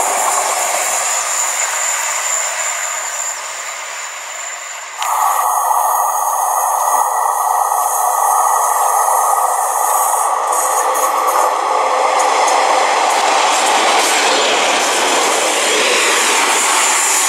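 A High Speed Train, its Class 43 diesel power car and coaches, rushes past on the rails and fades, cut off suddenly about five seconds in. After a stretch of quieter noise, a two-car Class 143 Pacer diesel multiple unit approaches and passes close, swelling to a loud rush of wheels on rail.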